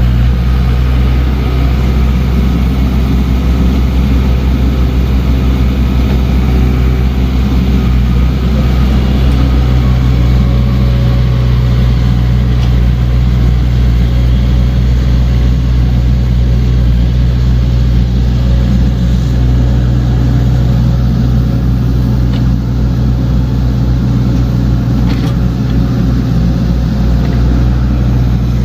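Diesel engine of heavy earthmoving equipment running steadily under working load, a continuous low drone, with a couple of faint knocks in the second half.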